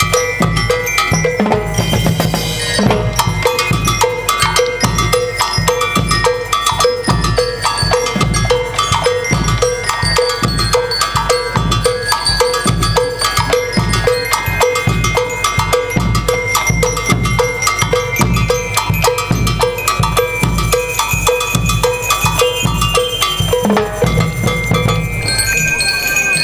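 School marching band (banda de guerra) playing: snare and bass drums keep a steady march beat of about two strokes a second, with bell lyres ringing a melody over it.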